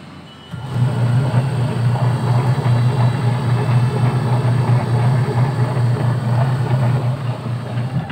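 Freshly replaced Fujidenzo washing machine motor running with a loud, steady hum as it turns the pulley and belt, a sign that the new motor and its rewiring work. The hum starts about half a second in and cuts off just before the end.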